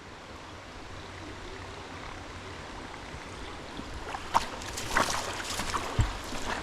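Creek water running steadily, with several short sharp sounds in the last couple of seconds and a low thump near the end.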